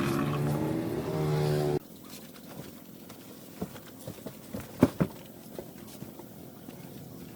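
A car engine running steadily, then cutting off abruptly about two seconds in. Scattered light clicks and knocks follow, with one sharper knock about five seconds in.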